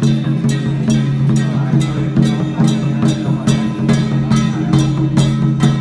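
Music with a steady percussion beat, strikes a little over twice a second, over sustained low notes.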